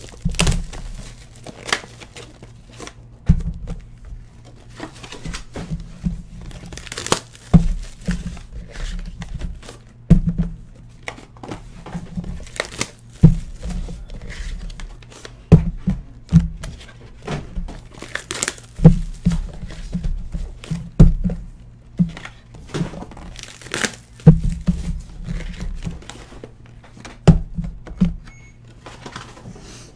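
Cardboard trading-card boxes and wrapped packs being handled and set down on a table: irregular knocks of cardboard with crinkling wrapper plastic.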